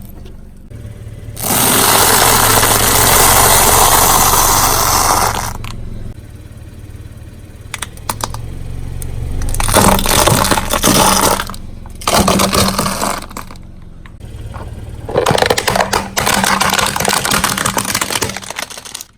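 A car tyre rolling over and crushing objects: several spells of crunching and crackling with sharp cracks in between, over the steady low hum of the car's engine.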